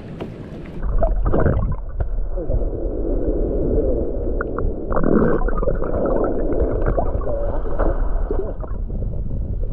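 Shallow water heard through a submerged GoPro's waterproof housing: a muffled low rumble with gurgling and a few faint knocks, starting about a second in after a brief stretch of open-air hiss.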